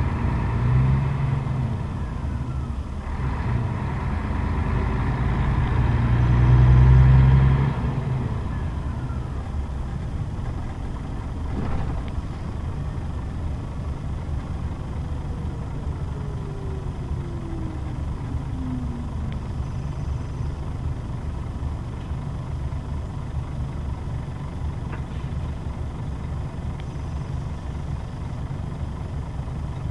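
Scania K124 bus's straight-six diesel heard from inside the bus, pulling and building for the first several seconds, then easing off abruptly about eight seconds in and settling to a steady low rumble. A single knock sounds around twelve seconds in, and a faint falling whine follows in the middle.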